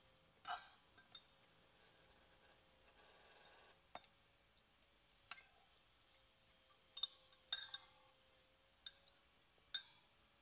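Metal spoon and fork clinking against a ceramic bowl while tossing a salad: about ten sharp, irregular clinks, the loudest about half a second in.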